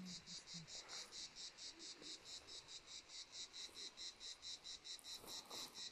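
Faint insect chirping in a steady rhythm, about six high-pitched pulses a second.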